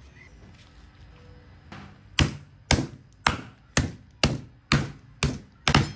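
A metal meat mallet pounds a butterflied flank steak through a plastic zip-top bag on a cutting board, flattening it. It lands in steady, sharp whacks about two a second, starting about two seconds in: eight strikes.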